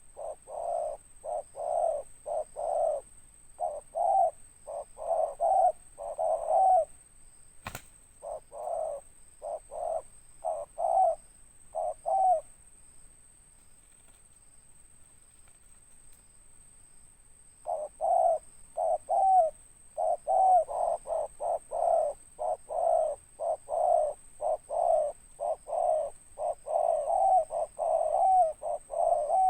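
Spotted dove (tekukur) cooing in rapid series of short notes, a first bout of about twelve seconds, a pause of about five seconds, then a second bout. A single sharp click about eight seconds in, and a faint steady high-pitched whine underneath.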